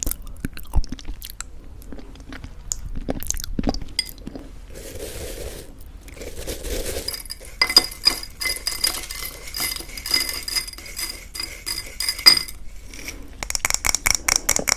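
A spoon clinking and scraping against a bowl of thick yogurt and granola: scattered taps, a soft scraping stir, then a dense run of quick ringing clinks and a final flurry of small clicks.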